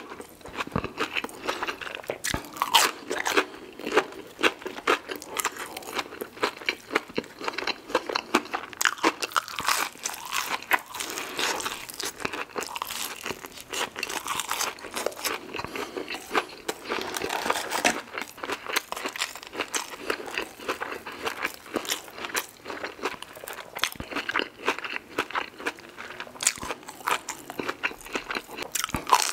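Close-miked crunching and chewing of extra crispy fried buffalo chicken nuggets, a dense, irregular run of sharp crackles from the crisp breading.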